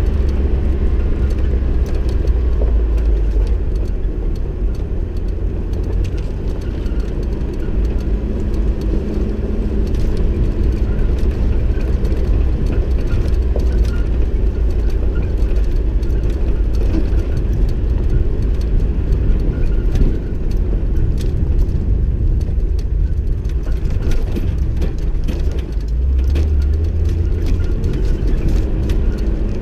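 Off-road vehicle driving a rough dirt track: a steady low rumble of engine and tyres, with frequent small knocks and rattles from the bumps.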